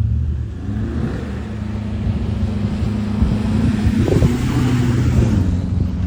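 Pickup truck engine running steadily under load, loud and close, with a rough patch of crackle about four seconds in.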